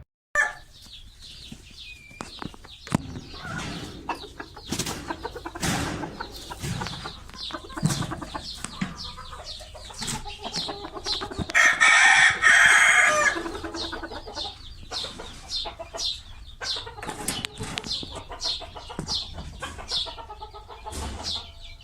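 Chickens clucking, with a rooster crowing loudly once, about twelve seconds in, and scattered short knocks between the calls.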